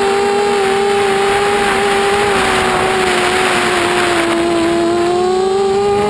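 Mini FPV quadcopter's motors and propellers whining steadily in flight, heard from on board with a rush of wind; the pitch sags slightly about four to five seconds in, then climbs again.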